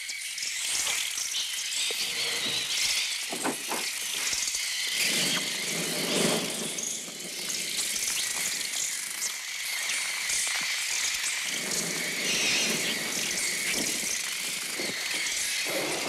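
A swarm of sparrows shrieking and twittering in one dense, shrill mass, made electronically on the Mixtur-Trautonium rather than recorded from real birds. Fluttering, rushing noise rises under it twice, for a few seconds each time.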